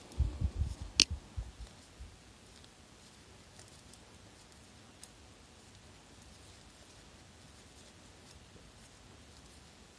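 Knitting needles and yarn being worked through a row of rib stitches: a few soft thumps and one sharp click of the needles in the first two seconds, then only faint occasional ticks.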